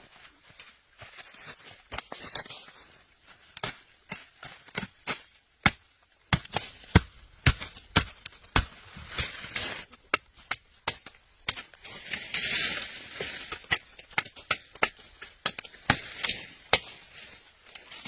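Repeated sharp chopping knocks at an uneven pace, several a second. A stretch of rustling or scraping comes in about twelve seconds in.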